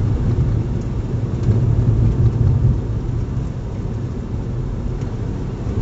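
Steady low rumble of engine and road noise inside a Kia Rio hatchback's cabin as it drives along.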